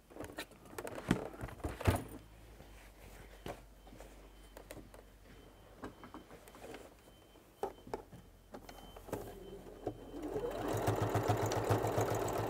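Electric sewing machine stitching through denim and tape, its needle running in a fast, even rhythm that starts about ten seconds in and gets louder as it speeds up. A few clicks and knocks come before it, in the first two seconds.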